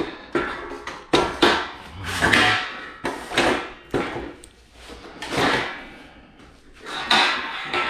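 Aluminium platform step ladder clanking and rattling as it is carried about, with a string of irregular knocks and clatters.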